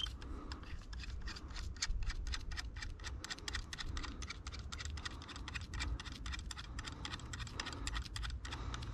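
Rapid, even ratchet clicking, about five or six clicks a second, as a strap anchored to an eye bolt in the rock is tensioned.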